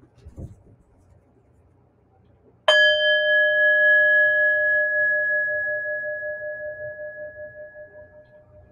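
A small handheld bell struck once, about three seconds in, ringing with a clear tone that pulses slightly as it slowly fades over about six seconds. It is a mindfulness bell, rung to close a breathing exercise.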